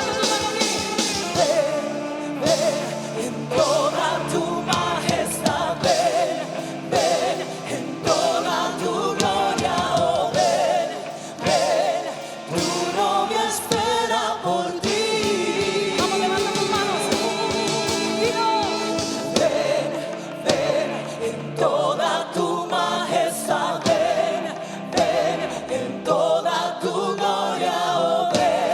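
Live worship music: a band playing with several voices singing together, choir-like, over a steady beat.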